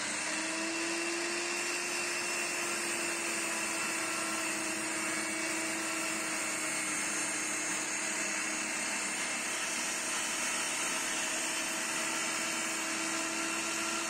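10-inch table saw running at full speed with a steady whine while its blade rips along a wooden block pushed through against the fence.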